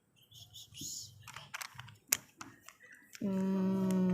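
Plastic clicks and rattles of a Rubik's cube's layers being turned by hand. About three seconds in, a loud, steady, single-pitched hum starts and holds.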